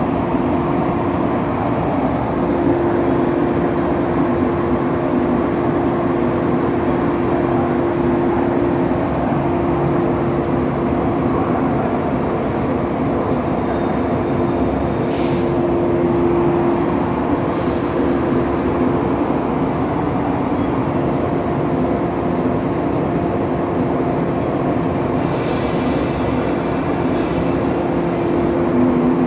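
JR 115-series electric train standing at a station platform, its onboard equipment giving a steady, continuous hum of two low tones.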